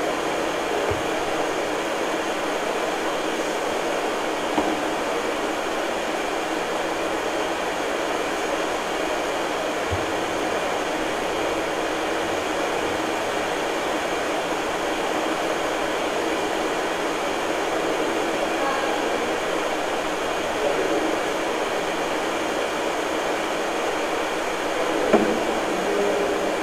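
Steady hiss of background noise with faint constant tones in it, broken by a few faint knocks, one near the end.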